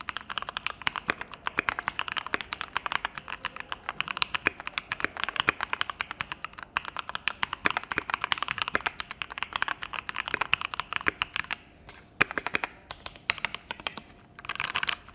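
Typing on a Keychron Q2 mechanical keyboard: a fast, continuous run of keystroke clicks that thins to a few scattered presses about twelve seconds in, with a short flurry of keys near the end.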